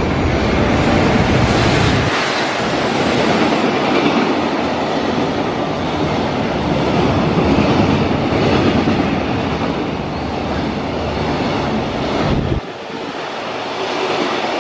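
Container freight train hauled by an EF210 electric locomotive running through a station at speed, a loud steady rush of wheels on rail as the wagons pass close by. The deepest rumble drops away about two seconds in, and the sound thins suddenly near the end.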